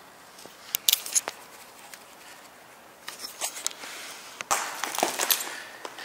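Footsteps with scuffing and sharp clicks: a few clicks about a second in, then denser scuffing from about three seconds in.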